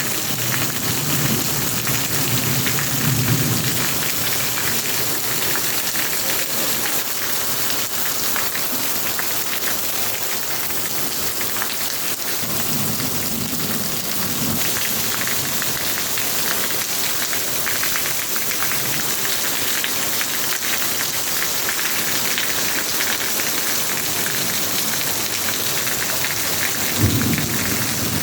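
Steady heavy rain falling and pattering on surfaces, an even hiss with no let-up. A few brief low rumbles rise under it three times.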